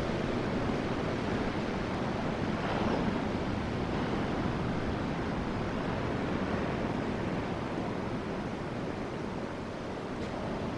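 Ocean surf breaking and washing on the shore as a steady rushing noise, mixed with wind on the microphone.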